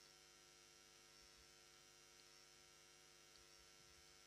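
Near silence: a faint steady electrical hum, with a couple of tiny ticks.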